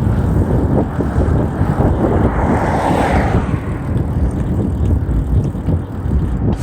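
Wind buffeting a chest-mounted camera's microphone while riding down a trail at speed, a loud steady rumble broken by small knocks and rattles from rough ground, with a brief louder hiss about three seconds in.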